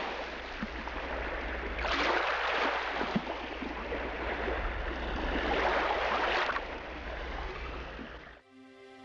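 Rushing water like surf washing on a shore, over a steady low rumble. It swells about two seconds in and again around six seconds, then cuts off near the end.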